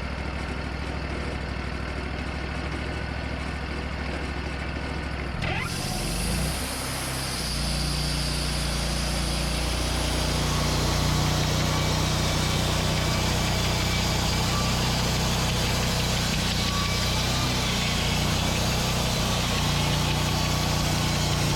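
Portable sawmill's engine running at idle, then speeding up with a brief rising whine about five seconds in, after which it runs steadily louder with a hiss on top as the mill works.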